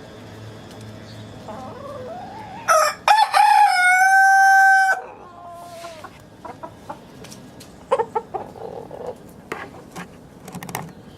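A rooster crows once, starting a little under three seconds in and ending on a long held note, followed by soft, scattered clucking from the flock.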